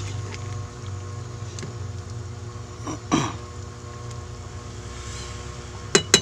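Metal ladle scooping and stirring soup in an aluminium pot, clinking against it, with two sharp clinks close together near the end and a louder knock about halfway through, over a steady low hum.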